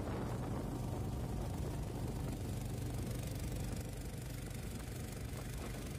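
Small fishing boat's engine running at a steady speed while the boat is under way, a constant low hum.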